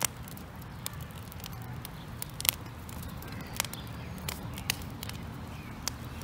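Small wood fire of twigs and sticks crackling, with irregular sharp pops and snaps several times a second over a low steady rumble.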